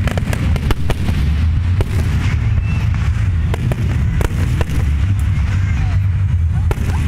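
Aerial fireworks shells bursting at a display, with many sharp cracks and pops in quick succession over a steady low rumble.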